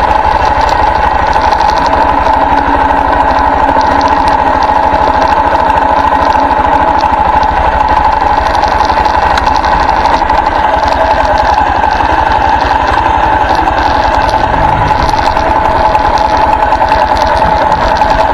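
Armstrong MT500 military motorcycle's single-cylinder Rotax four-stroke engine idling steadily at standstill, an even low beat with no revving.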